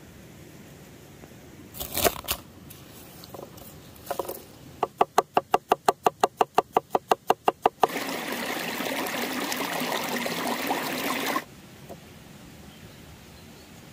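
A chef's knife slicing garlic cloves on a wooden chopping board: a couple of knocks, then about twenty quick, even chopping strokes in three seconds. After that comes a steady hiss for about three and a half seconds, which cuts off suddenly.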